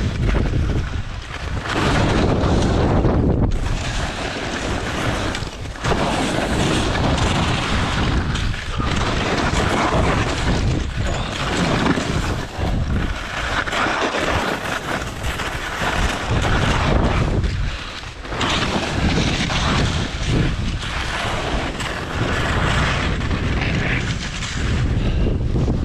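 Wind rushing over a GoPro's microphone while going down a steep snow slope, mixed with the scrape of edges on hard snow. The noise swells and dips every few seconds, as if with each turn.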